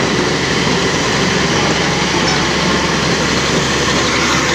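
Old Komatsu D85A crawler bulldozer reversing: its diesel engine running steadily under load while the steel tracks clatter and grind over loose topsoil.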